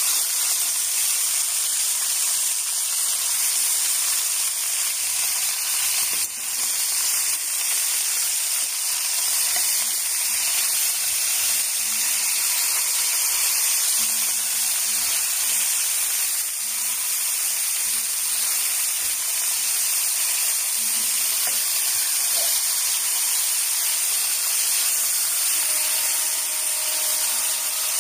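Whole spring chickens sizzling steadily as they brown in an enamelled cast-iron pot.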